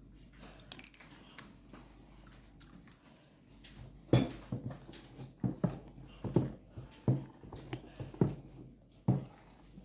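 Kitchen handling sounds at a bowl of blended-bean moi moi batter as olive oil goes in: after a quiet stretch, a run of soft knocks and thuds, about two a second, starting about four seconds in.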